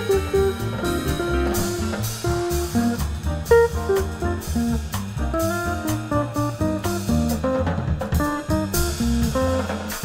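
Instrumental jazz from a small combo: a guitar playing a melody of quick single notes over upright bass and a drum kit.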